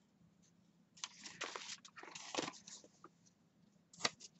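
Craft paper rustling and crinkling as it is handled, in two stretches about a second and two seconds in, with a short tap near the end.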